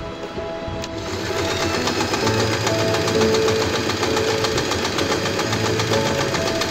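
Usha Allure electric sewing machine starting with a click about a second in, then running steadily at speed with rapid, even needle strokes as it stitches a decorative stitch over lace ribbon through a braiding foot.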